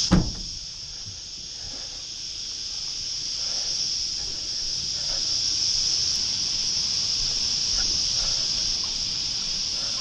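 A steady, high-pitched insect drone, with a knock at the very start and a few faint short chirps over it.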